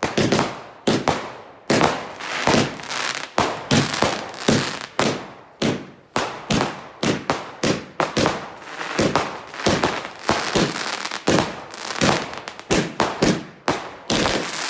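Fireworks going off in a fast, irregular run of sharp bangs, several a second, each dying away quickly.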